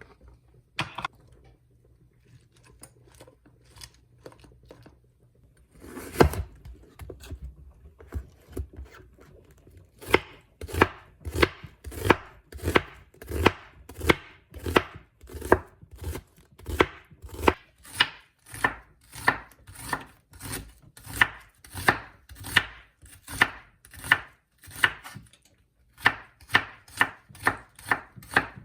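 Knife chopping food on a cutting board: a few scattered cuts, then a steady run of even chops about two a second.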